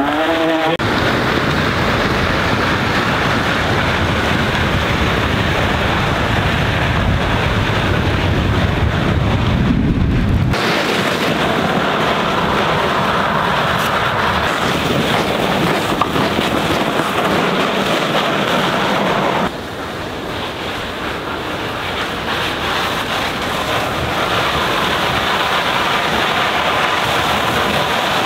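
Steady rushing of wind on the microphone while riding electric fat-tyre bikes through snow, with the wide tyres churning the snow. The noise changes abruptly about ten seconds in and again about twenty seconds in, where it turns a little quieter.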